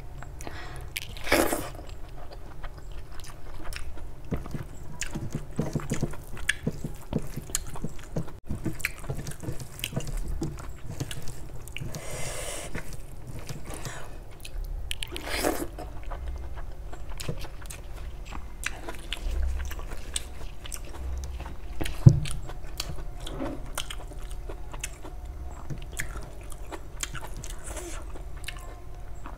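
Close-miked chewing and wet mouth sounds of someone eating rice and egg curry by hand, with many small clicks. A few louder smacks come through, the sharpest about two-thirds of the way in.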